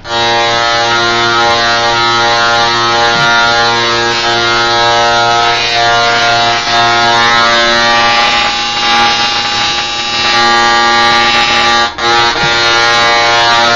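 Handheld Tesla coil in a drill case firing, its trigger-operated spark discharge making a loud, steady electric buzz on one pitch. It cuts out briefly about twelve seconds in, then resumes.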